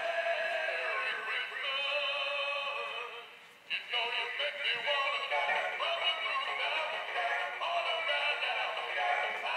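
A song with a sung vocal over music. The level drops briefly about three and a half seconds in, then the singing resumes.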